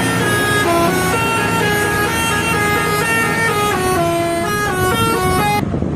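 Indonesian bus telolet horn playing a quick melody of stepped horn notes, several pitches sounding together. It breaks off abruptly near the end.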